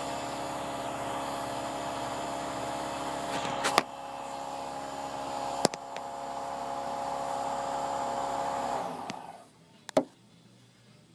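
A small electric motor running steadily with a whirring hum, then shutting off about nine seconds in, with a few sharp clicks or knocks along the way.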